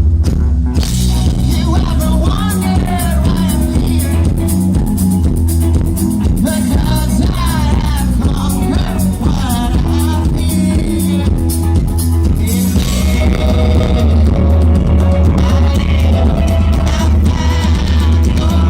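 Rock song with a steady beat, bass and guitar, with a singing voice over it; the arrangement changes about two-thirds of the way through.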